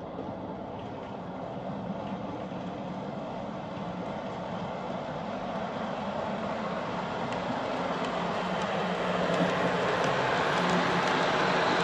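Model train running along the track, growing steadily louder as it approaches, with a steady motor hum and light clicks from the wheels on the rails.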